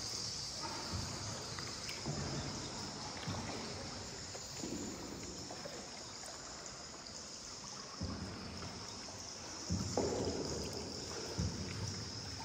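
Paddles dipping and pulling through water in repeated, uneven strokes, with water sloshing around a small paddled boat, over a steady high hiss.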